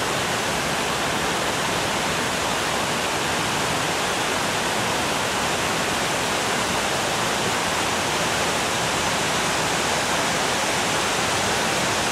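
Steady, even rushing noise with no breaks or changes.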